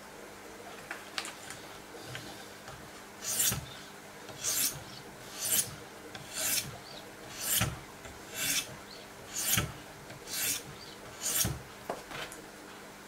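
Diamond sharpening stones on a Wicked Edge guided system stroked along the edge of a Benchmade Nakamura 484's M390 steel blade, a scraping rasp about once a second, nine strokes in all.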